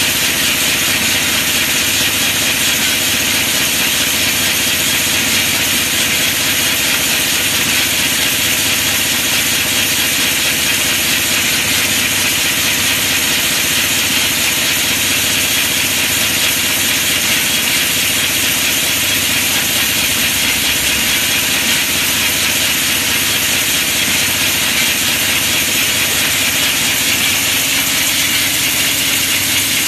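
Rotary cap slitting and folding machine running steadily, its turret turning as it slits and folds the tamper-evident rings of plastic bottle caps, giving a continuous fast mechanical clatter.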